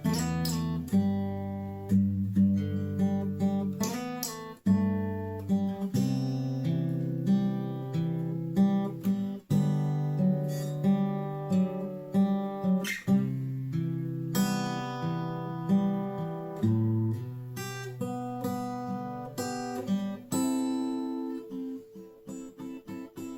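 Washburn WD11SCE acoustic-electric guitar being played: chords and single picked notes ringing one after another, with a run of short, quick notes near the end.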